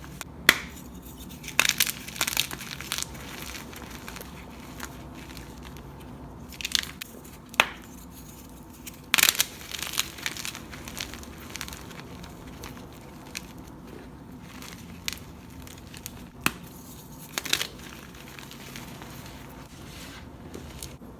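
Crunchy dyed chalk cubes and pressed blocks being crushed and crumbled: scattered sharp crunches, some coming in quick clusters, with quieter crumbling in between.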